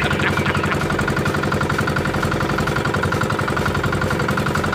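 Small engine of a motorized outrigger boat running steadily, with an even, rapid chugging that holds at one speed.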